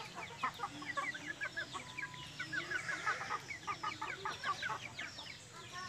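Chickens clucking and chirping, a busy run of short high notes, many sliding downward.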